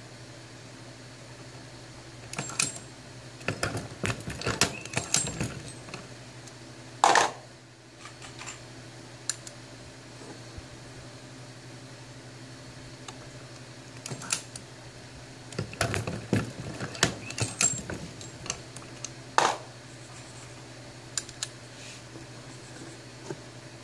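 Hornady Lock-N-Load AP progressive reloading press being worked through .45 ACP rounds: bunches of small metallic clicks and clinks of brass cases and bullets at the shell plate, with a louder clack about seven seconds in and another near the end. A steady low hum runs underneath.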